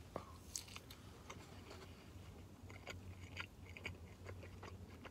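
Faint chewing: a person biting into a 7-Eleven cheeseburger roll and chewing it, with soft irregular clicks and smacks of the mouth.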